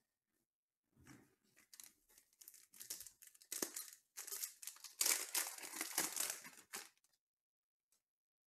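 Shiny foil wrapper of a 2020 Panini Contenders Baseball card pack being torn open and crinkled by hand. It starts about a second in, grows louder, and stops about seven seconds in.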